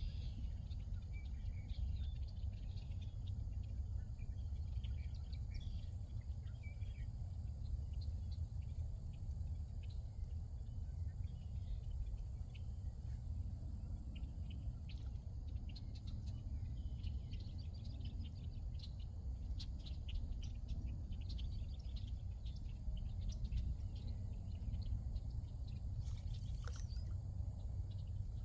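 Evening outdoor ambience: scattered short chirps and calls of wildlife over a steady low rumble.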